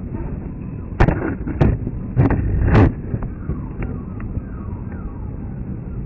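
Steady low rumble of a jet flying high overhead, broken by four loud sudden thumps between about one and three seconds in.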